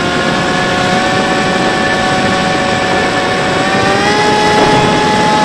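Electric motor and propeller of a Bixler 3 RC plane whining steadily in flight, heard from on board over rushing air. The pitch steps up slightly about four seconds in.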